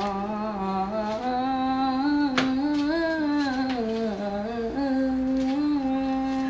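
A person humming a slow tune in long held notes that step up and down in pitch, with one short click partway through.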